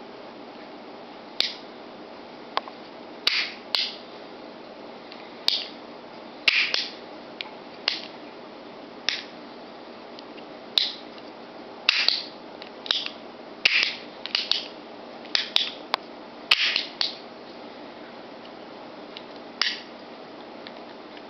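A series of about twenty sharp metallic clicks at irregular intervals, some in quick pairs, from the hammers and triggers of an antique double-barrel pinfire pistol being cocked and dry-fired.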